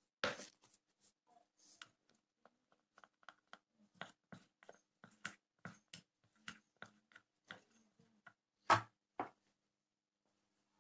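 Plastic spoon stirring cocoa powder in a ceramic mug, knocking and scraping against the sides about three times a second, with a louder knock just after the start and another near the end.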